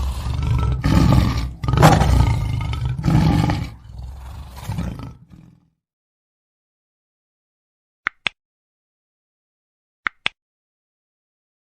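A lion roaring in a series of deep surges that grow weaker and fade out about five seconds in. Later come two pairs of brief high chirps.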